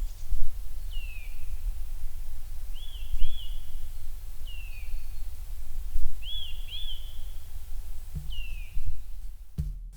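A bird calling repeatedly with short clear whistles: arched notes in quick pairs alternating with single notes that slide downward, a few seconds apart. A steady low rumble runs underneath, with a few low thumps near the end.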